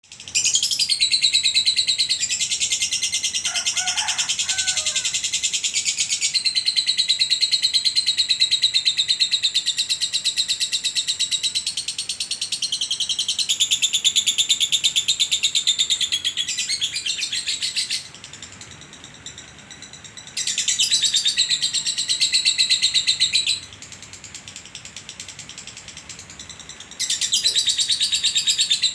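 A lovebird's ngekek, the long, rapid, shrill chattering trill that Indonesian bird contests judge by how long it lasts. It runs unbroken for about eighteen seconds, drops back, bursts out again for a few seconds, and starts again near the end.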